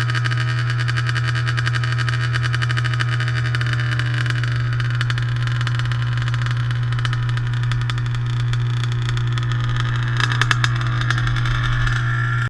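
Dirt bike engine running steadily, its pitch settling slightly lower about four and a half seconds in, with a short patch of sharp clicks near the end before the sound cuts off.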